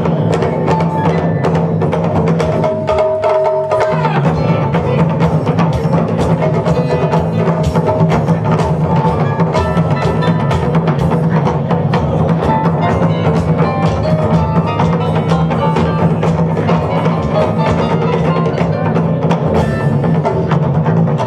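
Live ensemble music: Japanese taiko drums with keyboard, electric bass and drum kit playing a funk-style groove, with dense, driving drum strokes and wood-like clacks over sustained keyboard and bass notes. The low end briefly drops out about three seconds in under a single held note, then the full groove returns.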